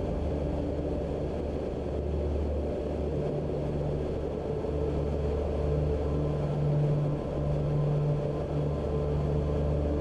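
Ultralight trike aircraft's engine and propeller droning steadily in flight, heard from on board: a continuous low rumble.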